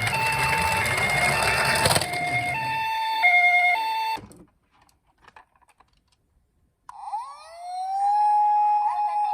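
Japanese ambulance two-tone 'pee-po' siren, switching between a high and a low note about every half second over a rushing noise and low rumble, then cutting off. After a couple of seconds of near silence a wailing siren winds up in pitch and holds steady near the end.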